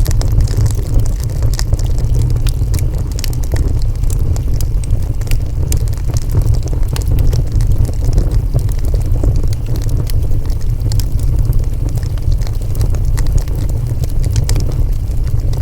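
Wood fire burning: many quick, sharp crackles and pops over a loud, steady low rumble.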